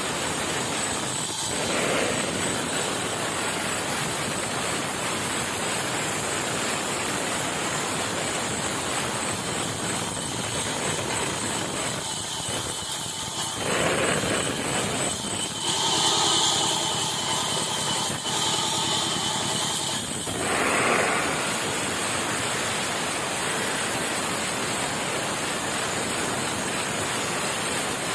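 Sawmill machinery running steadily with a dense mechanical noise. For several seconds past the middle, a higher-pitched whine with several steady tones rises over it, then drops back.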